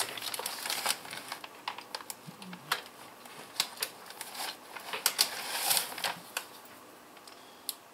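Small plastic zip bags of parts being handled and opened by hand: irregular crinkling and rustling of thin plastic with scattered small clicks, a little denser about five to six seconds in.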